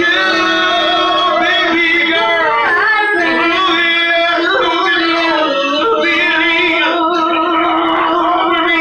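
A man and a woman singing together into microphones through a PA speaker over backing music, with long held notes.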